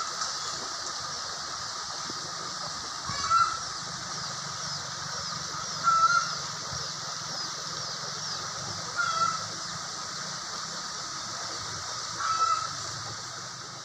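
Shallow river rushing steadily over rocks. A short animal call comes five times, about every three seconds, louder than the water.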